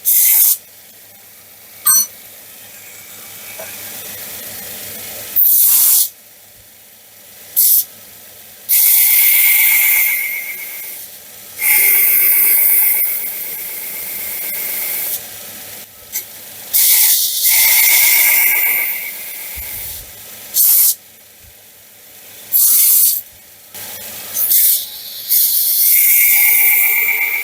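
Belt grinder running while small steel pieces are pressed against the belt again and again: each pass is a loud grinding hiss, from a fraction of a second to a few seconds long, several with a steady high whine, and the quieter hum of the running belt lies between passes.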